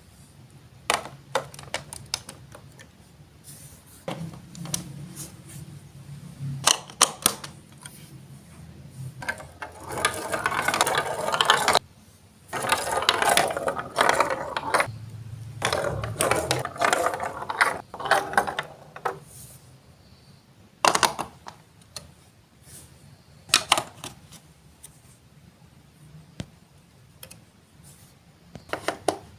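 Marbles rolling and clattering along a plastic Lego Duplo block track: sharp clicks, with two longer stretches of continuous rattling in the middle.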